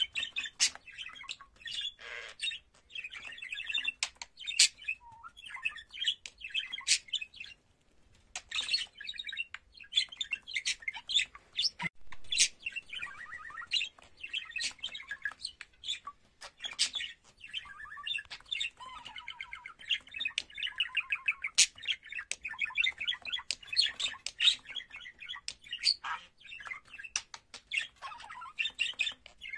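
Budgerigar warbling and chattering: a long run of fast chirps, clicks and squawks, with a short pause about seven seconds in.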